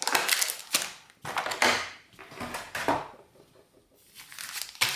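Foil booster-pack wrappers crinkling and rustling as the packs are handled, in three bursts over the first three seconds, then a single short tap near the end.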